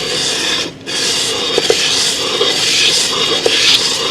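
A metal Carter fuel pump part rubbed back and forth on a sheet of 220-grit sandpaper, a steady scratchy rasp that swells and fades with each stroke, with a brief pause just under a second in. The part is being lapped flat; the sanding marks show where its surface is not yet flat.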